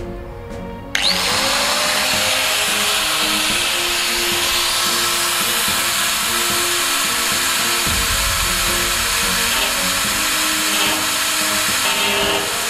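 Electric angle grinder switched on about a second in, its whine rising as the motor spins up, then running steadily as its disc grinds into the lid of a metal drum to cut a hole.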